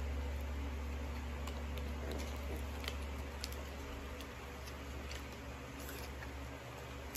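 A few faint, scattered clicks and taps from hands handling a small cardboard gift box, over a steady low hum.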